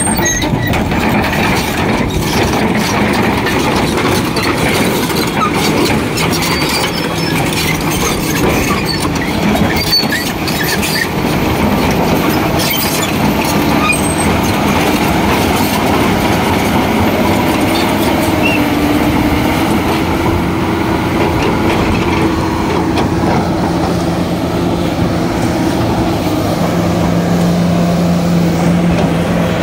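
Komatsu PC300 hydraulic excavator running loud and steady, its diesel engine and machinery clattering with scattered metallic clicks. A steady low drone grows stronger in the second half.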